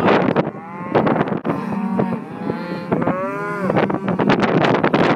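Cattle bawling: several drawn-out moos that rise and fall in pitch, one after another.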